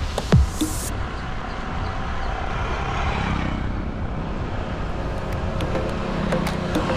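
Steady road and traffic noise heard from a bicycle on the move. Background music with a beat fades out about a second in and comes back near the end.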